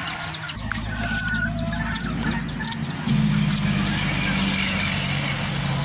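Rapid short, high, downward chirps of small birds, over a steady low motor hum that comes in about half a second in and gets louder about three seconds in.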